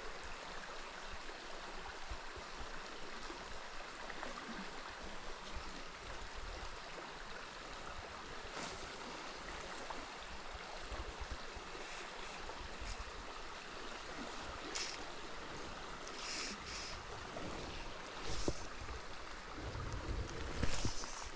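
River water running steadily, with several short splashy bursts in the second half and a low thump near the end.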